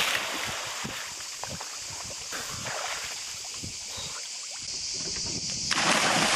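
Seawater churning and fizzing in the foam left by a dive off a sailing boat, with small crackles and sloshes. Near the end, a second loud splash as another body hits the water beside the hull.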